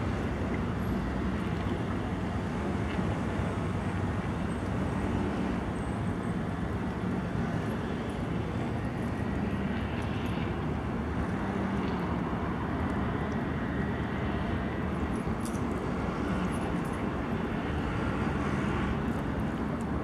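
Strong wind blowing on the microphone: a steady low rumble with no breaks.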